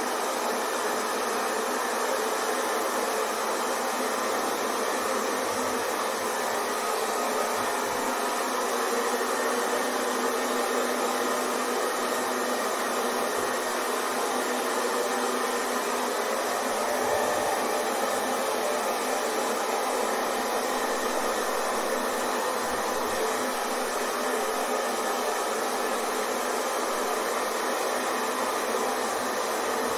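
Hair dryer running steadily: a constant blowing hiss with a faint steady whine, unchanging throughout.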